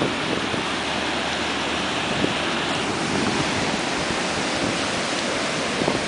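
Steady rush of ocean surf breaking on a rocky shore.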